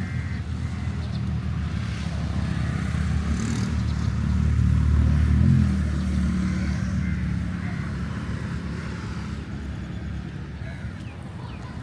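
A motor engine running with a low hum that grows louder, peaks about five seconds in, then fades as it passes.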